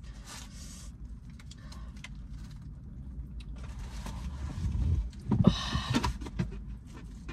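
Close-up eating sounds: biting into and chewing chicken wings, with scattered crunches and mouth clicks over a steady low hum, and a louder stretch of chewing about five seconds in.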